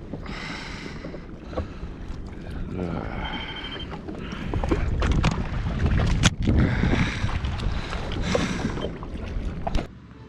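Wind buffeting the microphone and sea water washing around a jet ski, in swelling surges, with a few sharp knocks. It cuts off abruptly near the end.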